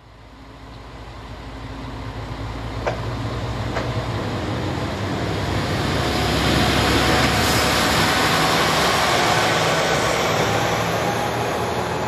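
Heisei Chikuho Railway diesel railcar passing through the station. It grows louder as it comes in and is loudest as it goes by. Two sharp clicks about three and four seconds in.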